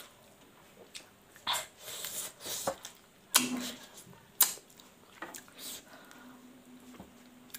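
Close-up eating sounds: a person chewing smoked pork and rice, with wet mouth smacks and several sharp lip clicks coming in separate bursts.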